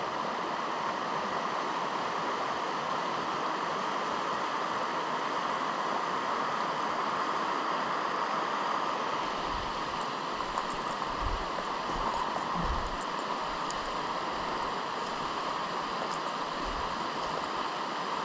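Mountain trout stream rushing steadily over a rocky bed, giving an even hiss of running water. A few soft low bumps come around the middle.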